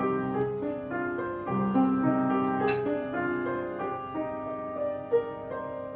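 Live instrumental music led by a keyboard instrument, playing held chords under a moving melody and gradually getting quieter.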